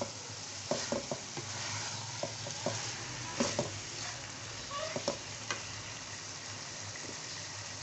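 Chicken, potatoes and onions sizzling steadily as they fry dry in a metal karahi, no water yet added. A wooden spatula stirs and scrapes through them, knocking against the pan in irregular clacks over the first five seconds or so.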